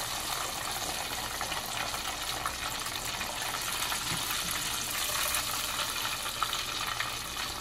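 Hot oil sizzling and bubbling steadily in a pot as flour-coated chicken pieces deep-fry.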